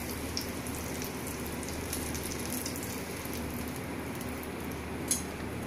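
Faint, steady sizzling and crackling of hot oil from the shallow-fried stuffed bitter gourds, with a single sharp click near the end.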